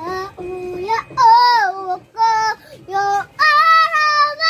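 A young boy singing in a high voice, holding steady notes in about five short phrases with brief breaks between them.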